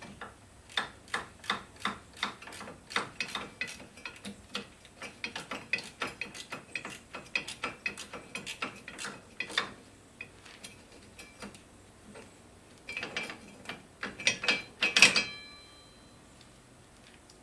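Hand ratchet wrench clicking in quick strokes, about three clicks a second, as a bolt is turned. After a pause comes a second burst of ratcheting, ending in a loud metal clank that rings briefly.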